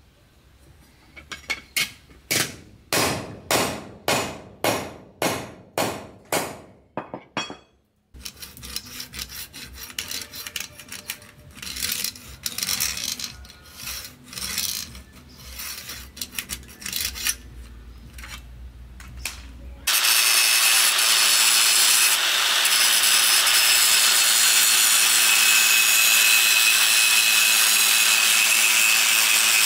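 A hammer strikes a steel knife blade held against a wooden stump about ten times, each blow ringing briefly. This is followed by lighter scraping and knocking of the blade. About 20 seconds in, a cordless angle grinder starts suddenly and runs steadily, grinding the blade.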